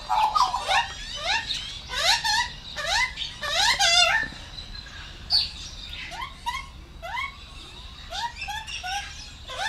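Australian magpies calling: a long run of short rising calls repeated over and over, louder in the first four seconds and softer after.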